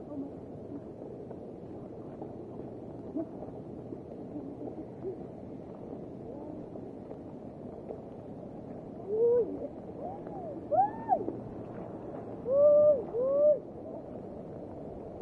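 Steady heavy rain. Past the middle come five short cries in quick succession, each rising and falling in pitch, and these are the loudest sounds here.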